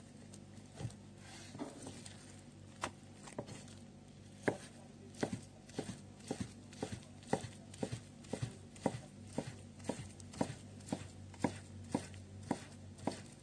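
Kitchen knife slicing through soft folded food and knocking on a cutting board. A few scattered cuts come first, then from about four seconds in the cuts settle into a steady rhythm of about two a second.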